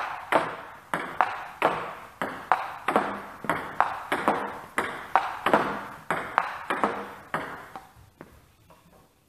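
Table tennis rally against a returnboard: the ball clicks on bat, table and rebound board in quick, even succession, about three strikes a second, each click echoing in the hall. The rally stops about eight seconds in.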